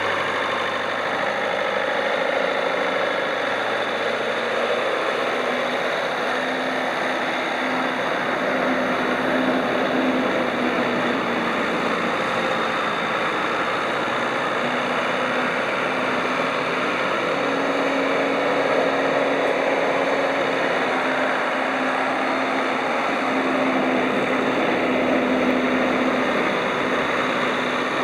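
JCB 214B loader backhoe's diesel engine running steadily, its speed rising and falling slightly a few times.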